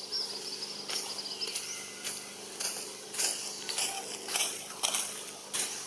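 Irregular crackling rustles of leaves and debris as a baby macaque moves about in the undergrowth, over a steady low hum with a few faint high chirps.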